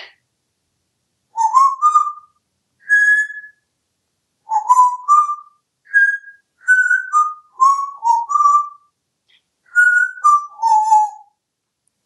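African grey parrot whistling a string of short clear phrases, each of two to four notes stepping up or down in pitch, with short pauses between the phrases.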